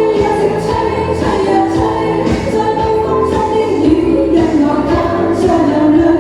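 Cantonese pop song with a steady beat and a melody line carried over the backing music.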